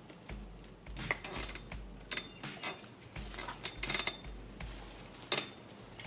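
Metal clicks and clinks, several ringing briefly, as a mountain bike is clamped and turned in a bike repair stand. The sharpest clinks come about two, four and five and a half seconds in. Under them run the low bass notes of background music.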